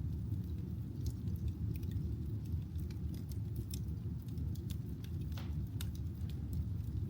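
Real firewood burning in a fireplace: irregular crackles and sharp pops over a steady low rush of the flames, with a louder pop about five and a half seconds in.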